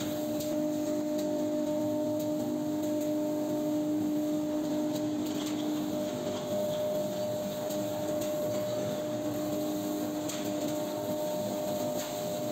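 CNC router machinery and its dust extraction running in a woodworking shop: a steady machine hum with a low tone and a higher tone held constant throughout.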